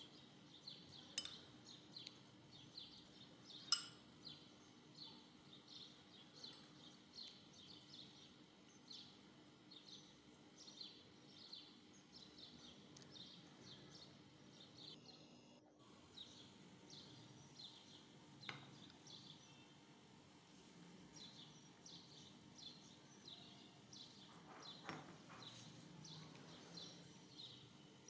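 Faint, repeated high chirps from a small bird, about two a second, pausing briefly in the middle. A few sharp clinks of a spoon against a glass jar and bowl come through, the loudest about four seconds in.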